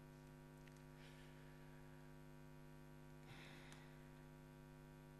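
Near silence, with a steady electrical mains hum in the sound system. Two faint, brief noises come about a second in and just after three seconds.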